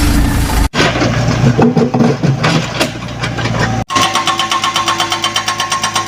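Heavy-equipment diesel engines running, heard in short clips that cut abruptly about a second in and again near the middle. In the last part an engine runs with a fast, even pulsing over a steady tone.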